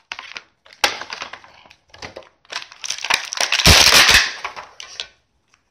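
Clear plastic blister packaging of a Mattel action figure being pulled apart and crushed by hand, crackling and crinkling in bursts, loudest about three to four seconds in. A sharp crack of the plastic comes about a second in.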